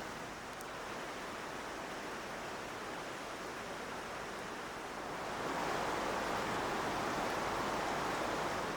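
Steady rushing of water, like waves washing on a shore, swelling louder about five seconds in.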